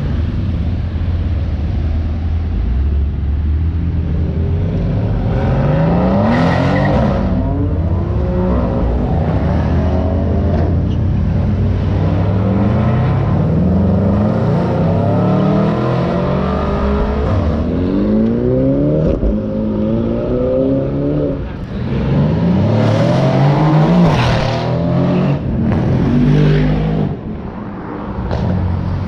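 Performance sedans, a Mercedes-AMG C-Class and a BMW M3, accelerating hard from a traffic light. Their engines give repeated rising notes as they rev and pull through the gears, over a steady low drone of traffic.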